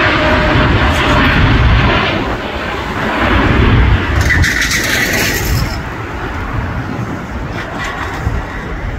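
Jet engines of a United Airlines Boeing 787 climbing out after takeoff: a loud, steady rumbling roar that gradually fades as the airliner moves away.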